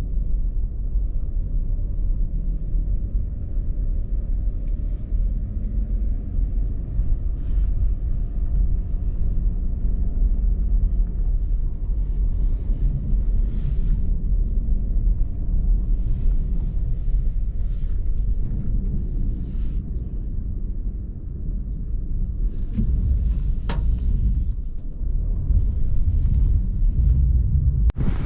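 Strong, gusty wind buffeting the microphone: a heavy, low rumble that swells and eases without letup.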